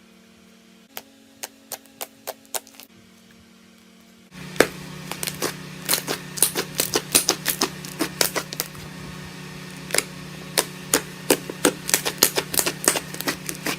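Crunchy slime being pressed and squished, giving crisp clicks and crackles: a few spaced snaps at first, then a dense, fast run of them from about four seconds in.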